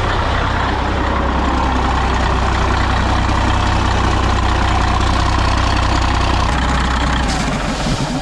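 Freshly swapped-in Caterpillar diesel engine of a Ford cabover truck running steadily at idle after its first start, heard with the cab tilted open. Its low drone fades near the end and the engine shuts off.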